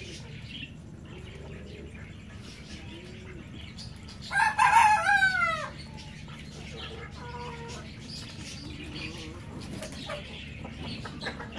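A rooster crows once, about four seconds in: a loud call lasting over a second that falls in pitch at the end. Fainter clucking calls follow later.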